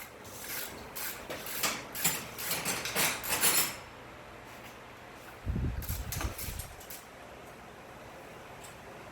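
Metal clinking and rattling of tools and engine parts being handled during an engine teardown, a quick run of sharp clinks for the first few seconds. About five and a half seconds in comes a heavy low thump with a short rumble.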